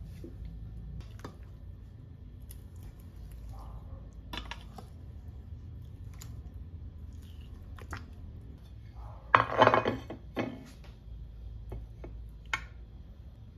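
A metal utensil clinks against a stainless steel bowl as marinated chicken pieces are stirred, with scattered sharp knocks. About nine seconds in comes the loudest part, a second-long clatter of several knocks as a ceramic baking dish is set down on a wooden table.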